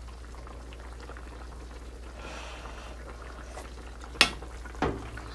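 Pork-bone stew bubbling in a pot, a steady soft boiling sound. About four seconds in there is a sharp clack, and a lighter one half a second later.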